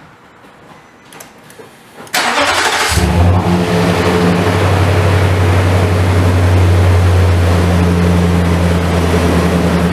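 A 2015 Nissan Titan's 5.6-litre V8 is cranked by the starter about two seconds in and catches within a second, then settles into a steady idle. This is the first start after an oil change, with the fresh oil still being pumped through an engine that ran briefly without oil pressure.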